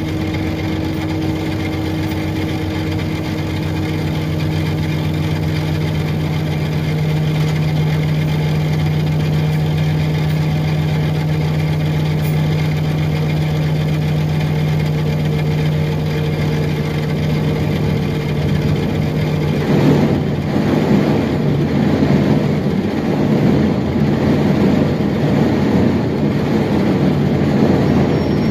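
Inside the cabin of a 2006 Orion VII hybrid transit bus: a steady low drive hum with idling at first, then about twenty seconds in a louder, rougher rumble as the bus gets moving.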